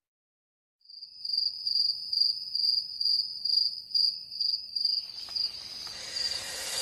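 Cricket-like insect chirping: a high, steady trill pulsing about three times a second, starting about a second in. A rising hiss builds under it near the end.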